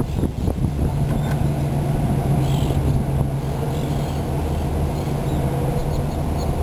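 Car engine running with a steady low hum as the car drives along, heard from inside the cabin. Gusts of low rumble come in the first half-second.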